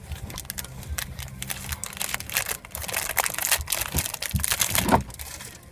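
Foil wrapper of a football card pack crinkling as it is handled and opened: a dense run of crackles that builds about two seconds in and stops about a second before the end.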